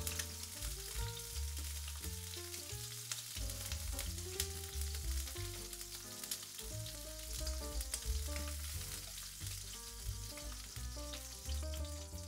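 Peeled shrimp sizzling in hot oil in a wok, with frequent small pops of spattering oil as they are pan-fried until both sides change colour. Soft background music runs underneath.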